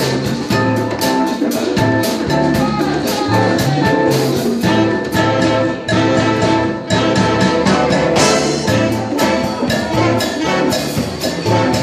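Live dance band playing upbeat music with a steady drum beat.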